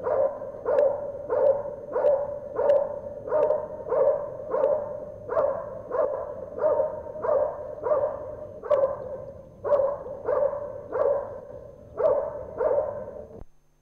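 A working dog barking steadily and rhythmically at a helper hidden in a blind, about three barks every two seconds: the IGP hold-and-bark, in which the dog guards the helper by barking without biting. The barking stops abruptly just before the end.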